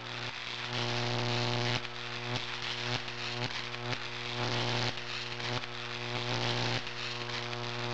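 A steady low buzzing hum with many overtones over a hiss, briefly dipping every half second to a second.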